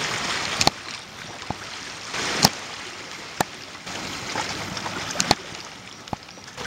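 Water lapping and sloshing in choppy, seaweed-covered shallows, with a little wind noise, broken by several sharp knocks or slaps, the loudest about two and a half seconds in.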